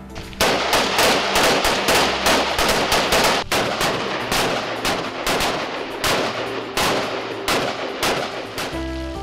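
Rapid gunfire: a firearm shot about three times a second, starting about half a second in and running for some eight seconds, aimed at truck fuel tanks.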